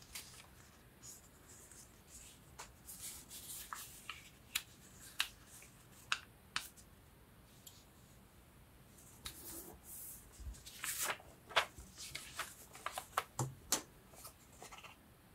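Scissors snipping and sheets of paper being handled: scattered light clicks and rustles, busier in the last few seconds.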